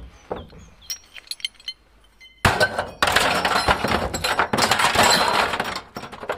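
Steel bicycle bottom bracket parts dropped into a plastic wheelie bin onto tin cans and scrap metal: a few light clinks, then about three seconds of loud metal clattering.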